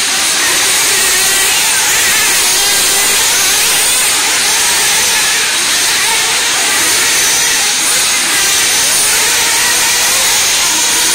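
Radio-controlled off-road cars racing around an indoor dirt track: a loud, steady whirring hiss of small motors and tyres.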